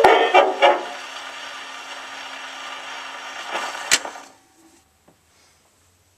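The last notes of a 1920s dance-band 78 rpm record ring out on a Brunswick Cortez phonograph. Then the needle rides the run-off groove with a steady scratchy surface hiss. A sharp click comes about four seconds in, and the sound soon drops almost to silence as the turntable stops.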